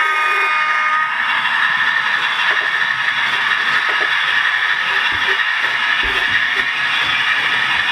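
00 gauge model train running on the layout: a steady whirring rattle of motor and wheels on track, with a few low knocks in the second half.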